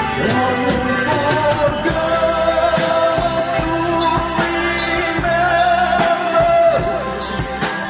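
A live amplified band playing a song: a singer over drums, electric guitar and keyboard, with a long held note in the middle.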